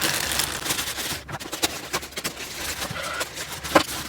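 Plastic packaging bags rustling and crinkling with scattered small clicks as a boxed figure's parts are handled and unwrapped, with one sharper click near the end.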